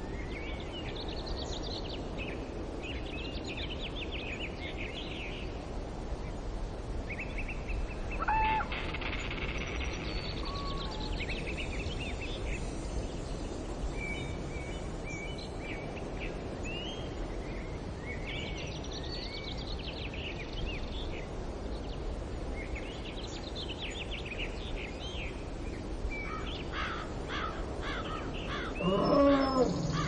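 Birds chirping and trilling in short repeated bouts over a steady outdoor background hiss, with a louder call falling in pitch near the end.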